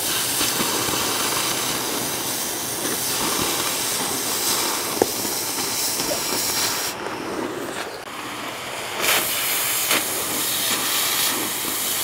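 Oxy-acetylene cutting torch hissing steadily as it cuts a circle through steel plate. The hiss turns duller for about two seconds past the middle, then comes back.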